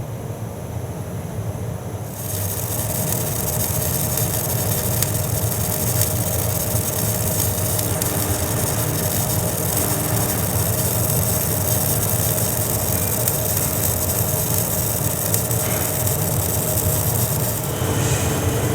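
Boiler-shop metalworking noise: a steady harsh hiss with scattered crackles starts about two seconds in over a low workshop rumble, and eases shortly before the end.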